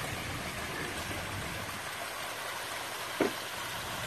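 Water from a pond's rock waterfalls and spillway bowls splashing and trickling into the pool, a steady even rush. A short thump about three seconds in.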